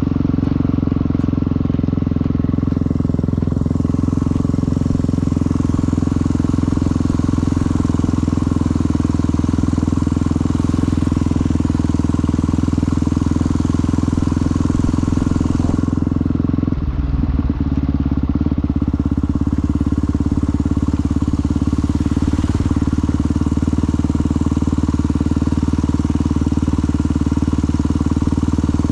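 Motorcycle engine running steadily under way, with a brief dip and change in the engine note a little past halfway through.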